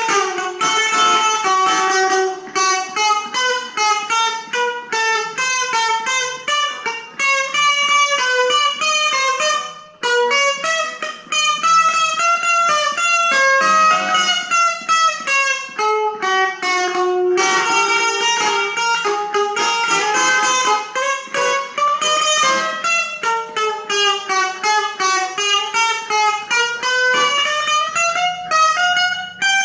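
Stratocaster-style electric guitar played solo in quick single-note runs that climb and fall, with a short break about ten seconds in.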